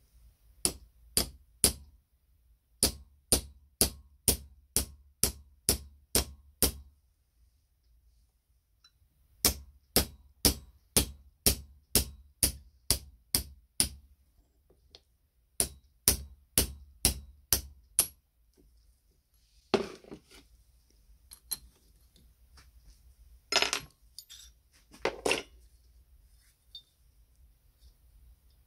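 Hammer tapping a steel pin punch to drive the pivot pin out of an old double hole punch: sharp, ringing metal strikes about two a second, in four runs with short pauses. In the last third, a few duller knocks of the loosened metal parts being handled.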